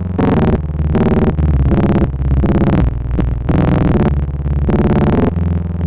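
Analog synthesizer voice processed through two Noise of Antimatter Subshaper modules in series: the first adds subharmonics, and the clocked second one chops it into a rhythmic pattern with its clock dividers. The result is short, gated notes with a heavy low end, shifting pitch from one step to the next.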